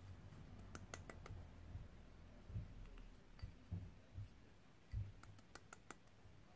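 Faint clicks and a few soft knocks of a small bowl being handled and tapped upside down over a metal mixing bowl as flour is emptied out.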